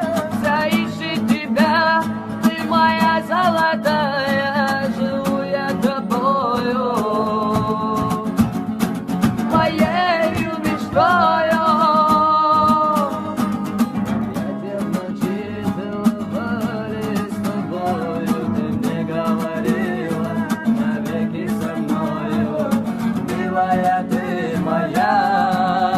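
Music: a song with plucked guitar accompaniment and a voice singing a gliding melody over it.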